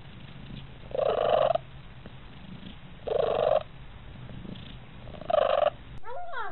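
A cat purring steadily, broken by three loud, short calls about two seconds apart. Near the end, a brief meow.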